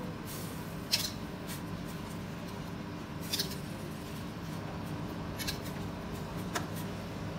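A metal skimmer clinks lightly against a steel pot about four times as blanched cabbage leaves are lifted out of the boiling water, over a steady low hum.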